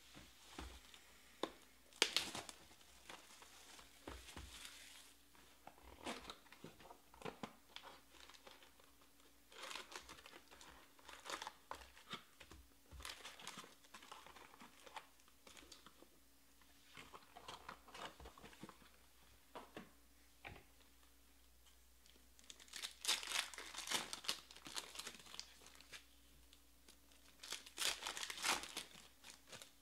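Foil wrappers of baseball card packs crinkling and tearing as they are handled and ripped open by hand, in repeated short flurries with quieter gaps between.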